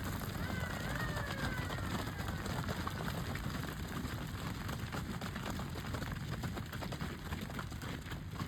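A herd of cattle on the move, hooves clattering and pattering in a dense, irregular stream, over a steady low engine rumble. A thin whistle rises and then slowly falls in the first few seconds.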